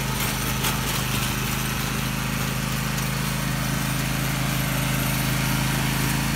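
John Deere garden tractor's engine running at a steady, unchanging speed.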